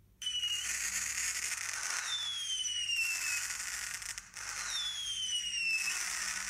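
Recording of a complete firework: a high-pitched whistling firework that starts suddenly, giving two long whistles, each falling slowly in pitch over about three seconds, over a crackling hiss, with a brief gap about four seconds in. It is the kind of high-pitched firework noise that most upsets a noise-phobic dog.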